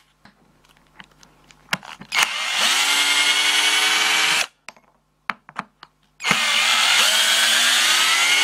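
A 12 V cordless drill-driver drives a long wood screw into a wooden block in two runs of about two seconds each. The whine of its motor and gearbox rises in pitch as it spins up at the start of each run. A few handling clicks come before and between the runs.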